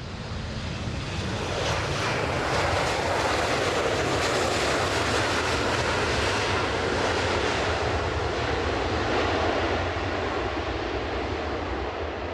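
Jet engines of a JAL Boeing 737-800 (737-846) landing: a loud, steady rushing engine noise that swells over the first couple of seconds, then holds and eases slightly near the end.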